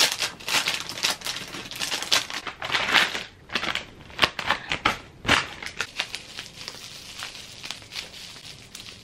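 Scissors snipping through a plastic mailer bag, with the bag crinkling loudly, then softer crinkling of plastic wrap from about five seconds in.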